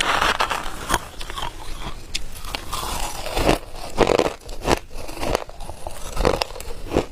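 A person biting and chewing hard ice close to the microphone: a series of irregular, sharp crunches.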